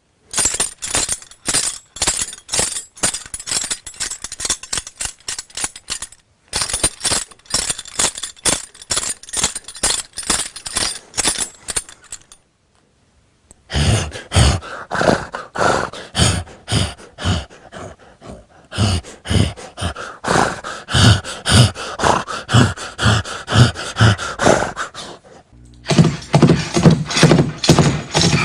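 A rapid run of sharp clicks and knocks, several a second, that stops for about a second partway through. It comes back as rhythmic knocking with deeper thuds underneath, the thuds strongest near the end.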